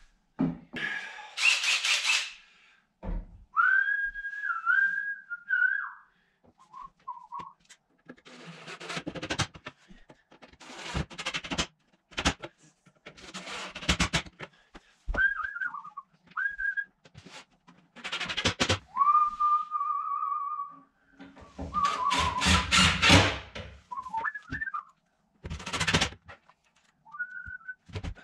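A man whistling short snatches of a tune, the pitch wavering up and down, between loud bursts of noise and knocks from work on kitchen cabinets.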